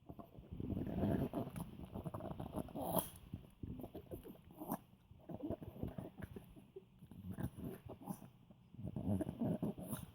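An old poodle eating something tasty, making pig-like grunts and snorts in several rough bouts, with quick smacking clicks of chewing between them.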